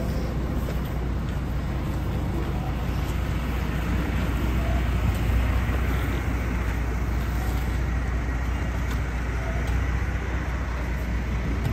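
Steady low rumble of road traffic, with the drone of idling vehicle engines.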